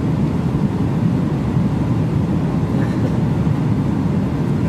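Steady low roar of airliner cabin noise in flight: jet engine and airflow noise heard from inside the passenger cabin.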